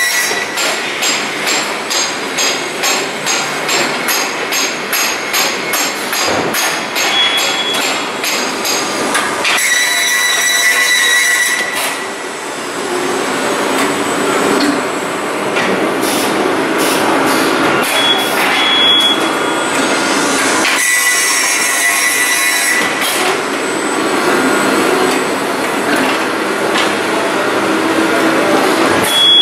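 Machinery of an MgO board production line running: a quick series of metallic knocks, two to three a second, for the first several seconds, then steadier mechanical rattling.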